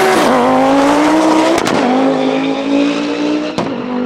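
A turbocharged Volvo T5 2.3-litre five-cylinder engine, in a drag-racing VW Mk3 Golf, accelerating flat out down the strip. Its pitch climbs between quick upshifts of the Quaife sequential gearbox: three sudden drops in pitch, near the start, about a second and a half later and near the end, the last two with a sharp crack.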